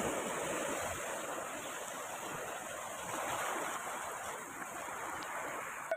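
Sea surf: waves breaking and washing over low rocks along a sandy shore, a steady hiss of rushing water.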